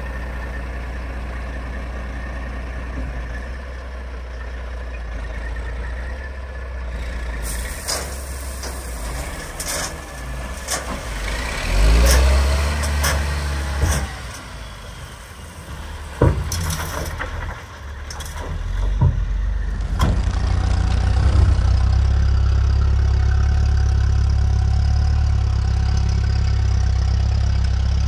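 Dump truck's diesel engine idling, then a run of clanks and bangs as the tipped bed dumps its load of gravel, with the engine revving up and back down in the middle. From about two-thirds of the way through, a louder steady low engine drone takes over: the vintage Ferguson tractor running.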